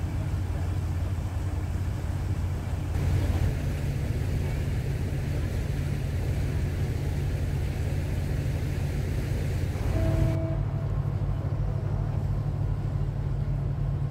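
Steady low drone of the passenger boat's engine heard on deck, with a haze of rushing water and wind. The sound changes abruptly at about three and ten seconds in, and a short faint tone is heard around ten seconds.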